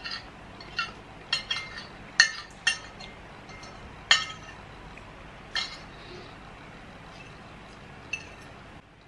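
Metal cutlery clinking against ceramic plates as two people eat: about eight short ringing clinks scattered through, the loudest about two seconds in and again about four seconds in.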